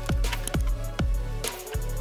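Electronic music with heavy bass: booming kick drums that drop in pitch, about two a second, over sustained bass notes.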